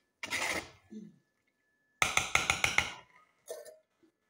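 Metal spoon scraping inside a large aluminium cooking pot as spaghetti is dished out, followed about two seconds in by a quick run of about six metallic clinks and a single clink near the end.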